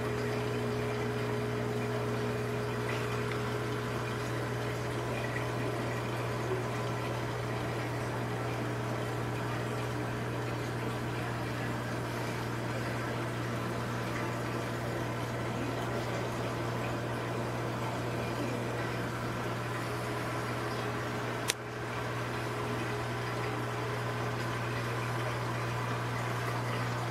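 A reef aquarium's pumps and circulating water: a steady low hum with water running and splashing. A single sharp click comes about three-quarters of the way through.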